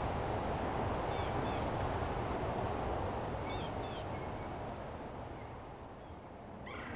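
Steady low outdoor rumble, easing off toward the end, with a few faint short chirps of small birds about a second in and again around four seconds.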